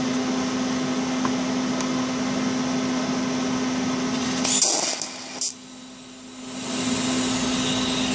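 Steady electrical hum of a running TIG welding machine. About four and a half seconds in come two short hissing bursts a second apart, as a torch is brought to the work and pulled away. After the bursts the hum drops for a moment and then comes back up.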